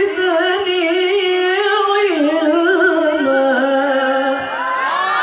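Solo male Qur'an recitation in the melodic tilawah style through a microphone: one voice holding long, ornamented, wavering notes, stepping down to a lower pitch about two seconds in. Near the end many audience voices call out together over it.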